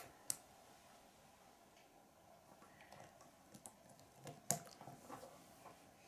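Faint, scattered clicks of small Lego plastic pieces being pressed together and handled, with sharper clicks just after the start and about four and a half seconds in.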